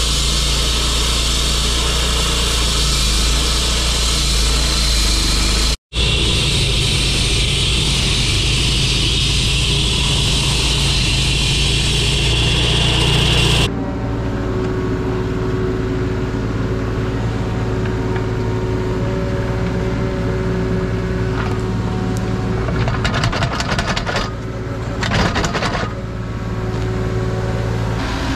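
Engine-driven walk-behind saw cutting a line through asphalt: a steady engine run under a high, hissing cutting noise, broken by a brief dropout about six seconds in. About halfway through it gives way to a Kubota mini excavator's engine running as its bucket digs out a footing hole, with a run of scrapes and knocks near the end.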